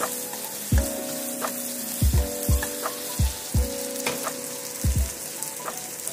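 Chicken and vegetables sizzling in a wok while a cooking utensil stirs them. The utensil knocks against the pan about nine times at an irregular pace, and most knocks leave a short ringing tone.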